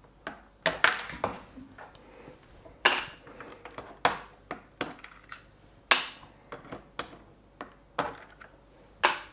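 Plastic keycaps being prised off a Logitech G613 mechanical keyboard's Romer-G switches with a knife blade: a string of sharp clicks, a second or more apart.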